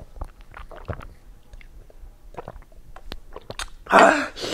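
A person gulping milk from a glass, with small wet swallowing and mouth clicks, then near the end a loud breathy gasp through an open mouth as the chili heat burns.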